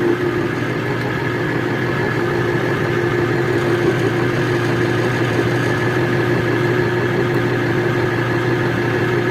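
Electric safety can opener running, its motor giving a steady hum as it turns the can smoothly around.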